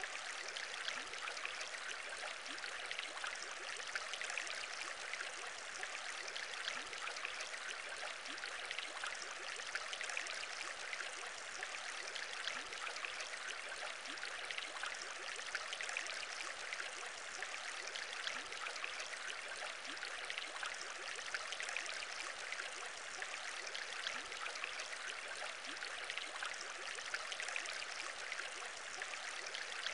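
Aquarium bubble sound: a steady, even stream of small bubbles fizzing and popping in water.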